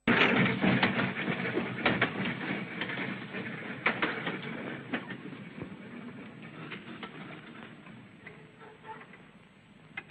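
Electric double-deck tram running on its track, its wheels clattering with irregular knocks, starting loud and fading away over several seconds as it moves off.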